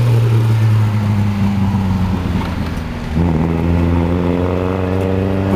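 Old racing car engine running at a steady speed with a low, even note. About three seconds in, the engine sound changes and grows fuller, with a higher note added.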